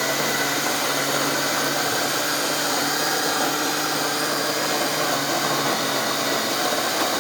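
Electric burr coffee grinder running steadily, grinding espresso beans: a loud motor hum under a steady grinding noise.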